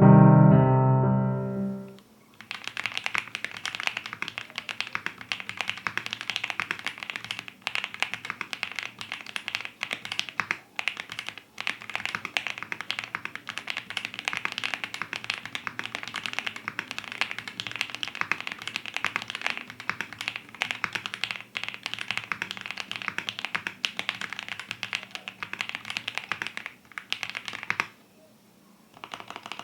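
Piano music that ends about two seconds in, then continuous fast typing on the Phase One 65 mechanical keyboard, a dense run of keystroke clicks that stops about two seconds before the end.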